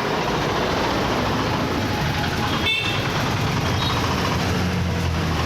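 Steady roadside traffic noise with vehicle engines running, and a brief high beep about two and a half seconds in.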